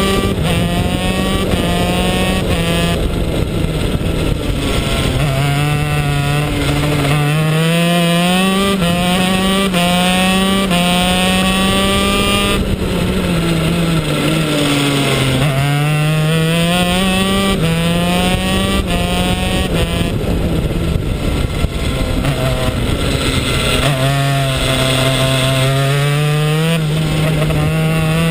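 A 125cc shifter kart's two-stroke single-cylinder engine at speed, revving up through the gears. Its pitch climbs and then drops back with each shift and each slowing for a corner. There is a sharp drop about twelve seconds in.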